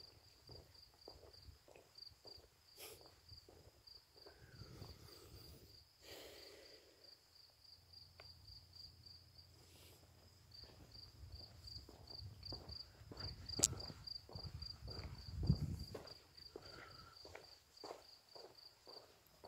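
Crickets chirping in a steady, pulsing rhythm, with regular footsteps about twice a second. About two thirds of the way through there is a sharp click and then a louder low thump.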